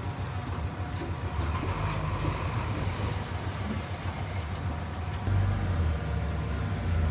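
Heavy diesel earthmoving machine running with a steady low drone and a few sharp metallic clicks. It grows louder about five seconds in.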